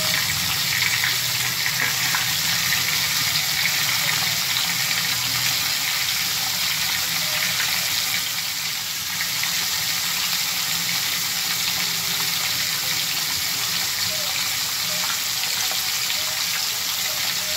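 Fish pieces shallow-frying in oil on a tawa griddle, sizzling steadily, with a slight dip in loudness about halfway.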